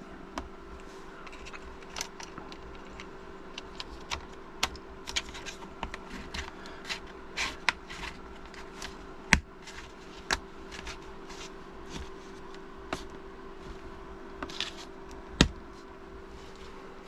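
Irregular small clicks, taps and light scrapes of a Chromebook's plastic parts being handled and fitted back together, over a faint steady hum; the sharpest clicks come about nine and fifteen seconds in.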